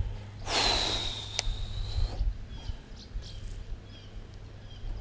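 Baitcasting reel spool spinning as the line pays out on a cast: a hissing, high whine that dips slightly and then holds steady for about a second and a half, with a sharp click partway through. A few faint ticks follow.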